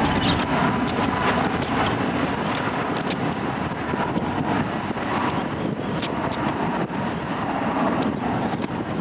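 Jet engines of an Airbus A321neo rolling along the runway, a steady rushing noise mixed with wind buffeting the microphone.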